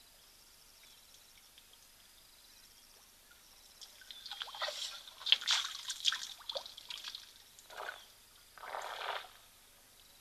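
A lioness chewing and tugging on the camera's cable: a quick run of crackles and clicks starting about four seconds in, then two longer rasping scrapes near the end.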